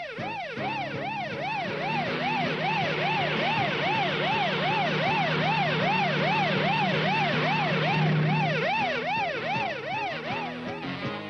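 Cartoon siren sound effect wailing up and down rapidly, about three rises and falls a second, with a steady low tone underneath.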